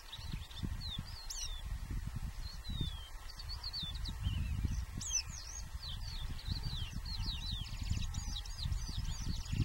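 Small birds chirping: many short, high, quick falling notes, scattered at first and crowding together near the end, over a steady low rumble.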